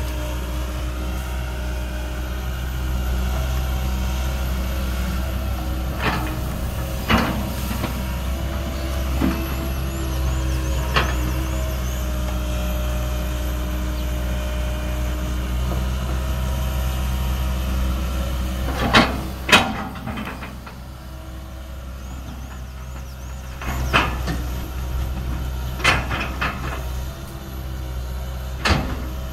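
Komatsu PC200 crawler excavator's diesel engine running steadily under digging load, with about ten sharp clanks and knocks from the bucket working earth. The engine drops to a lower, quieter run for a few seconds about two-thirds through.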